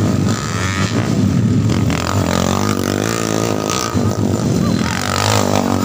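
Motorcycle engine running, its pitch rising and falling as it revs.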